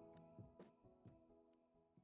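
Quiet background music with sustained, ringing notes, fading out.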